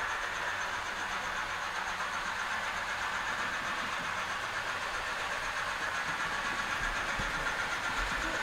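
Model trains running on a large model railway layout: a steady whirring hum without sharp clicks.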